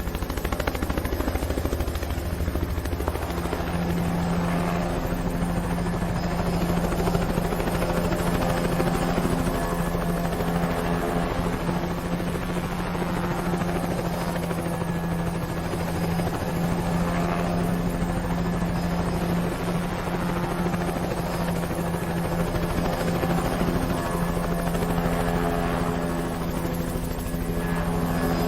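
Helicopter sound effect: a steady, fast rotor beat over a constant hum, running unchanged throughout.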